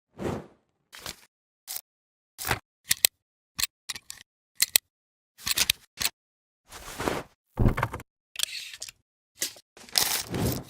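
A string of about fifteen short transition sound effects, each cut off into dead silence: sharp clicks and camera-shutter-like snaps mixed with brief noisy swishes, the longer swishes coming in the second half.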